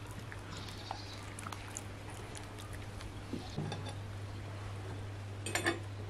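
Faint clinks and taps of cutlery on plates at a meal, with a brief louder clatter near the end, over a steady low hum.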